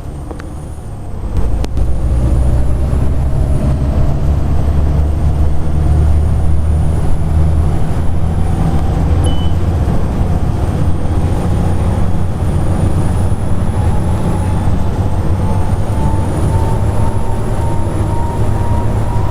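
Volvo B7TL double-decker bus's engine pulling hard as the bus accelerates away, its rumble rising about a second in. A thin high whine, the loud 'hoover' whine, runs over it and drops back briefly three times as the automatic gearbox changes up.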